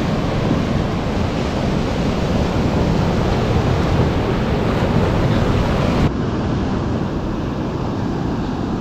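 Surf washing on a beach with wind buffeting the microphone, a steady loud rush of noise that changes abruptly and drops slightly about six seconds in.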